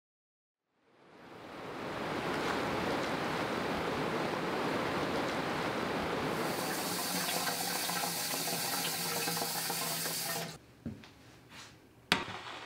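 Whitewater river rapids rushing, fading in from silence over the first second or two and cutting off about ten seconds in. Near the end, two brief knocks as a stovetop kettle is handled.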